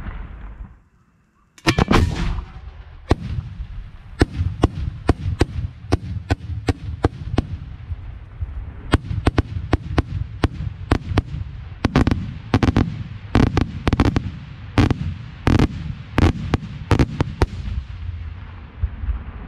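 Aerial firework shells going off in a long, irregular series of loud sharp bangs, some in quick clusters, with a low rumble between them. The bangs start after a brief silence about a second in.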